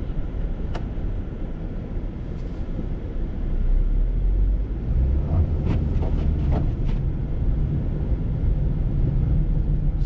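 Car driving on a snow-covered, slushy street, heard from inside the cabin: a steady low rumble of engine and tyre noise. A few short clicks come about halfway through as the windshield wiper sweeps.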